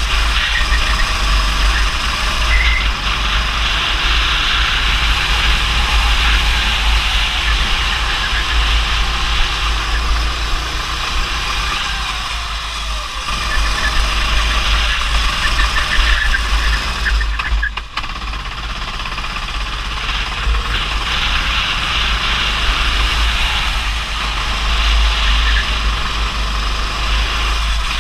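Go-kart engine running at speed on a wet track, heard from on board, under a heavy low rumble of wind buffeting the microphone. The level dips briefly about two-thirds of the way in.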